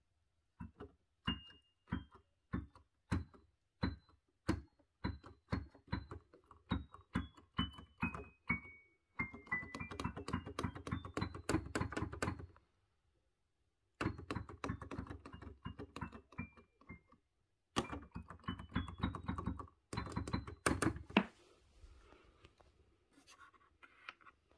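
Yamaha P-105 digital piano playing through its built-in speakers: single notes struck one after another, stepping down in pitch, then quick runs up the keys. The playing breaks off twice briefly, then stops about seven-eighths of the way through.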